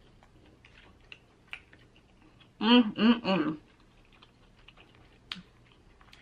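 Close-miked chewing of seafood: quiet, scattered wet mouth clicks and smacks. About two and a half seconds in, her voice breaks in briefly with three quick syllables.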